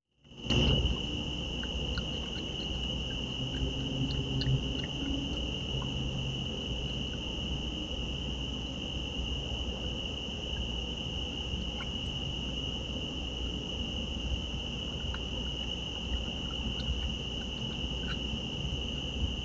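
Steady chorus of night insects, a continuous high trill, with faint scattered ticks and clinks from a raccoon feeding at food dishes.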